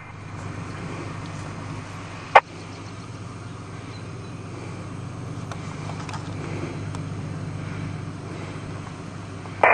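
Roadside traffic ambience: a steady low engine hum with a faint haze of road noise, and one sharp click about two and a half seconds in.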